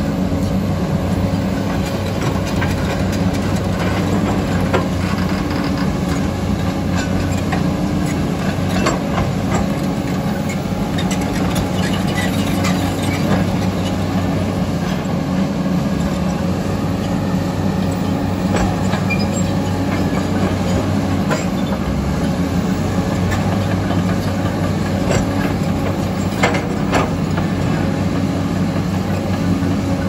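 Heavy diesel engines of a crawler excavator and a Komatsu D85EX bulldozer running under load in a steady drone, with scattered metal clanks and knocks from the working machines.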